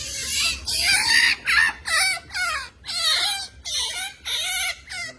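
An otter giving a run of about nine short, high squeaky calls, roughly two a second, each dropping in pitch: the whiny calls otters make when asking for attention or pampering.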